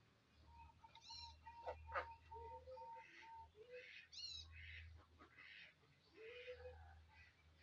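Faint bird calls: a few short, low, rounded cooing notes, a row of short steady notes, and a couple of high chirps, over a steady low hum.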